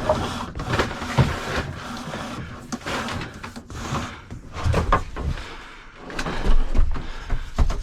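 Electrical cable being pulled and fed through drilled holes in wooden joists: irregular rustling and scraping, with several knocks, loudest about six and a half to seven and a half seconds in.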